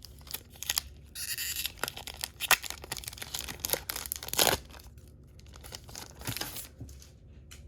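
A trading-card pack wrapper being torn open and crinkled, in irregular rustles and snaps, the loudest about four and a half seconds in, then quieter handling.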